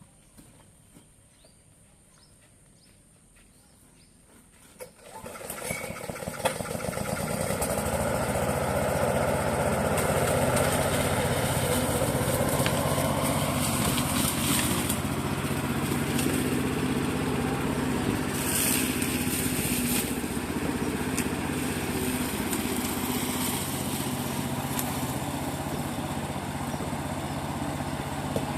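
Briggs & Stratton 140cc four-stroke lawn mower engine starting about five seconds in, then running steadily.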